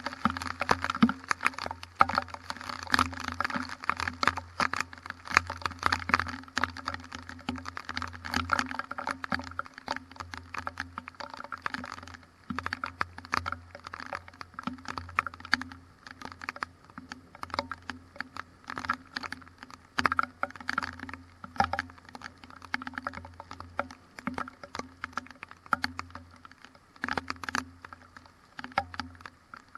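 Rain in a thunderstorm pattering in dense, irregular clicks of drops, heaviest in the first several seconds and thinning out later, over a steady low hum.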